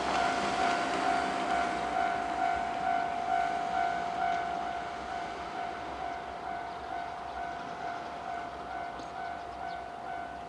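Japanese level-crossing warning bell ringing, a steady repeating electronic ding a few times a second, over a rushing background noise that slowly eases.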